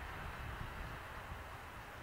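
Faint, steady rumble and hiss of a train running far down the line, slowly fading away.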